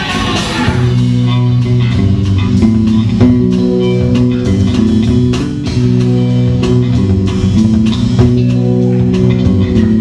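Rock band playing live: electric guitar and bass guitar hold a riff of low sustained notes over a steady drum-kit beat, with no vocals.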